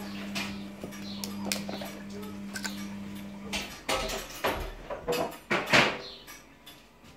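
Clicks and rustles of a plastic syringe and cup being handled while the syringe is filled with warmed egg-yolk mixture, loudest a little before the end. A steady low hum underneath stops about halfway through.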